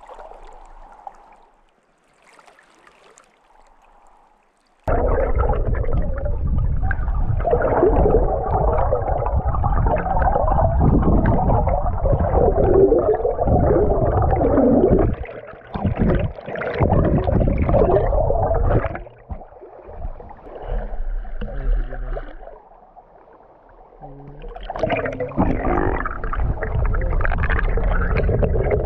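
River water gurgling and churning right against the microphone, starting suddenly about five seconds in after a quieter stretch, with a muffled, underwater-like rumble.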